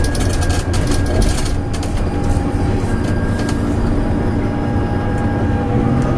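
Volvo B9TL double-decker bus running, heard from on board: a steady low engine hum with a thin whine over it, and rattling clicks through the first couple of seconds.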